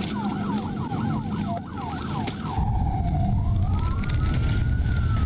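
Police car siren on the pursuing patrol car, first in a fast yelp of about four sweeps a second, then switching to a slow wail that rises and falls. A low rumble of engine and road noise grows louder from about halfway through.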